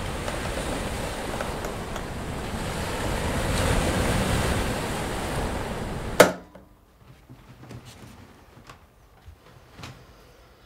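A rushing, wind-like roar that swells and then stops dead on one sharp hit about six seconds in, a sound-design transition; after it, a quiet room with a few faint clicks.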